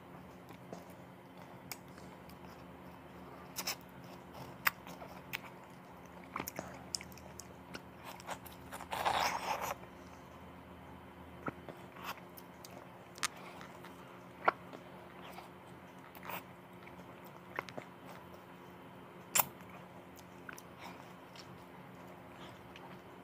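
Mouth noises of a person eating ripe mango by hand: scattered wet smacks and clicks as the soft flesh is sucked and bitten off the peel and seed, with one longer, louder noise about nine seconds in. A faint steady hum sits underneath.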